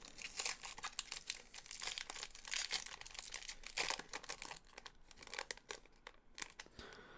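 Faint crinkling and crackling of plastic trading-card packaging being handled, with many short crackles for the first five seconds that thin out near the end.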